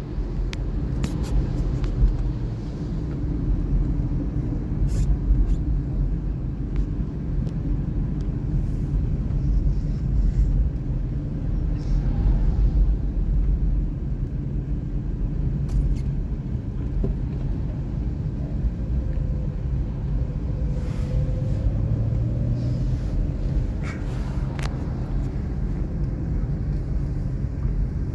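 Inside a small car driving on a wet road: steady low rumble of the engine and tyres, with a few faint clicks.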